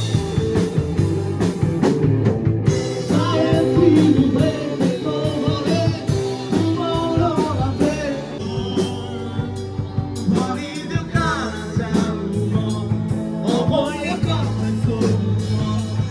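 Rock music with a singing voice, guitar and a steady drum beat.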